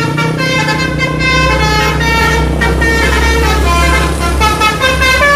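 Telolet musical bus horns tooting a quick run of pitched notes, several tones at once, over the low rumble of bus engines.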